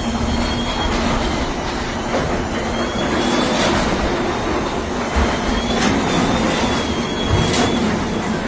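Garage door running along its tracks: a steady rolling rattle with a low hum underneath and thin squeals that come and go a few times.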